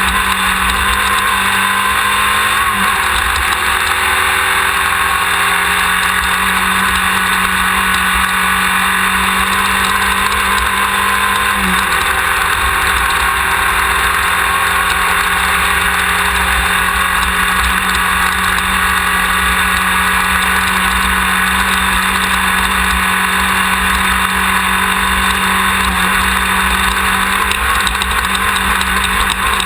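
Class 1600 off-road race buggy's engine running hard at speed. The engine note climbs slowly, and the low tone steps about three seconds in and again about twelve seconds in.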